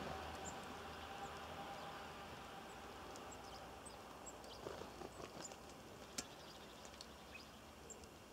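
Small birds at a garden bird feeder giving scattered short, high chirps, with a few soft taps and one sharper click about six seconds in. Under this, a faint passing-vehicle rumble dies away over the first two seconds.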